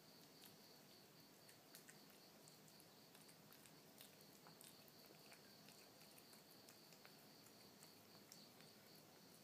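Faint, soft clicks and smacks of a kitten chewing and licking a chunk of canned wet cat food from a ceramic saucer, over a quiet hiss with a faint steady high-pitched trill.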